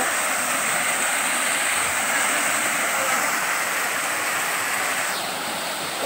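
Small waterfall rushing over rocks into a shallow pool, a steady splashing of water that dips slightly in level near the end.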